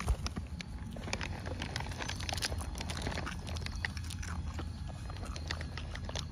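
A young macaque biting and chewing food close to the microphone: a run of small clicks and crunches over a low steady rumble.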